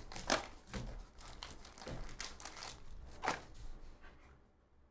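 Plastic shrink wrap on a trading-card box crinkling and crackling as the box is unwrapped and opened, with a few sharper crackles; it dies away about four seconds in.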